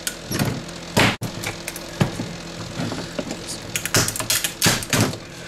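Pliers gripping and prying parts off a CRT monitor circuit board: several sharp clicks and knocks of metal on metal and board, as an aluminum heatsink is worked loose. A steady low hum runs underneath.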